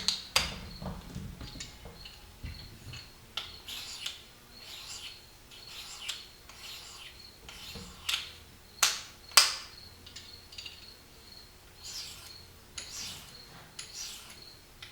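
Small metallic clicks and short light scrapes from handling a single-bevel broadhead and its diamond sharpening stone on a KME sharpener, irregular and a few seconds apart, with a faint steady high chirping behind them.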